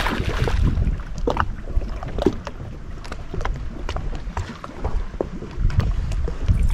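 Small fishing boat on the water: a steady low rumble with many scattered small clicks and knocks.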